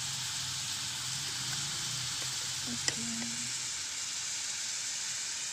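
Broccoli sizzling in a small electric pan with little water left in it, stirred with a spatula; a steady hiss with one sharp tap about three seconds in.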